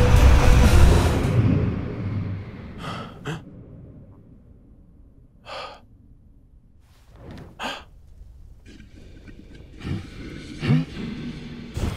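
A loud low rumble fades out over the first two seconds, then a man gasps and breathes in short, frightened breaths spaced a second or two apart.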